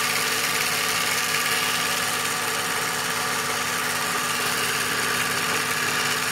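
Game-bird plucking machine running with a steady hum, its rubber plucking discs spinning, with a bird pressed against them to strip the feathers.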